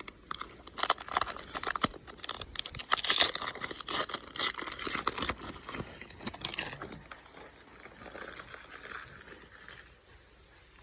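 Foil wrapper of a baseball card pack crinkling and tearing as it is opened, a dense crackle that stops about seven seconds in and leaves only faint rustling.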